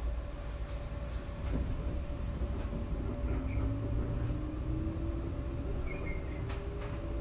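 JR Shikoku 121 series electric train running, heard from inside the car: a steady low rumble of wheels on rail, with the traction motor whine slowly rising in pitch from about a second and a half in as the train picks up speed.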